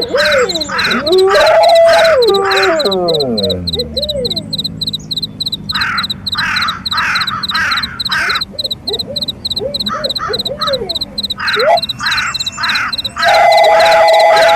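Layered night-animal soundscape: crickets chirp steadily throughout, while wolves howl with wavering, overlapping calls at the start, fading on a long falling howl, and again from near the end. In between, crows caw in short harsh calls.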